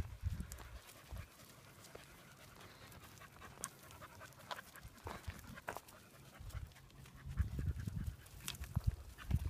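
A dog panting, with scattered short clicks and scuffs. Low rumbling comes in near the start and again from about two-thirds of the way through.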